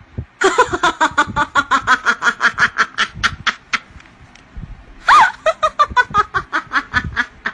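A person giggling in rapid "ha-ha-ha" pulses, about nine a second, in two runs. The second run begins with a louder, drawn-out note about five seconds in.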